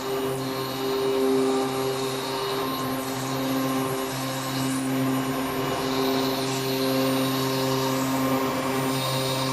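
Marble CNC router running, a steady machine hum with several held tones and a low drone, and a faint hiss that comes and goes higher up.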